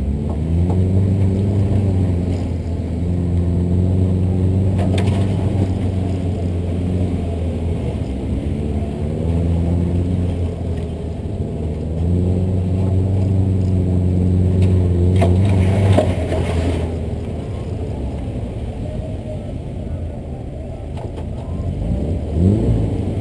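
Air-cooled flat-four engine of a 1964 Volkswagen bus driving off-road, revving up and easing off in several surges, with a short burst of rushing noise about two-thirds of the way in.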